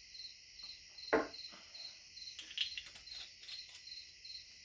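Crickets chirping steadily in the background, about three chirps a second. A single knock comes about a second in, followed later by a few faint ticks.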